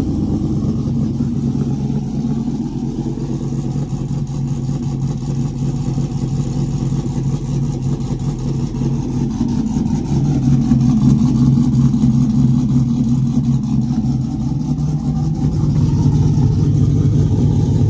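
Cammed 5.3-litre V8 of a GMC Sierra running at idle through long-tube headers and newly fitted Cherry Bomb glasspack mufflers, growing louder about ten seconds in.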